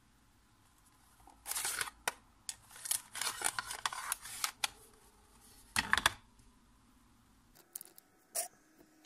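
Plastic Casio scientific calculator being handled and turned over in the hands: a run of rubbing, scraping and clicking from about a second and a half in, then a knock about six seconds in as it is set down on a wooden desk.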